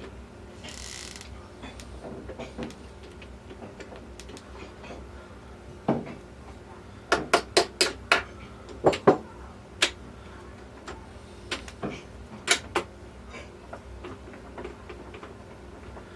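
Metal parts of an overdrive unit being worked by hand on the bench. Scattered sharp clicks and knocks, with a quick run of about eight knocks in the middle, as a stubborn part is pushed and tapped into place.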